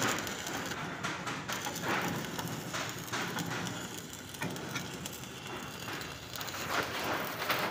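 Chickpea machine with a gear-driven wire-mesh drum, clattering with irregular clicks and knocks over a steady noise.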